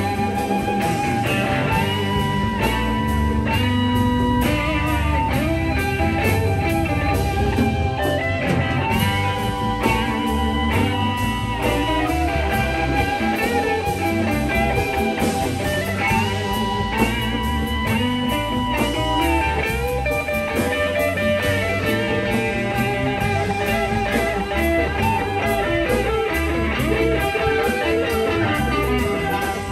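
A live blues-rock band playing an instrumental passage, with an electric guitar taking a lead line of held notes and bends over the rhythm section.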